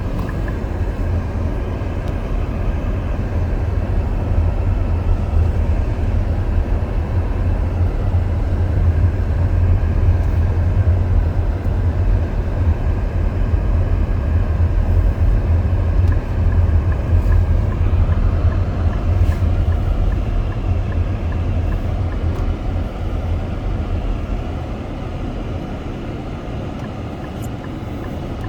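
Blizzard wind buffeting the microphone: a steady low rumble that eases a little near the end.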